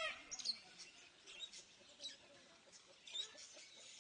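Faint, short high-pitched squeaks from a small animal, a handful at irregular intervals, the clearest about half a second in and just after three seconds.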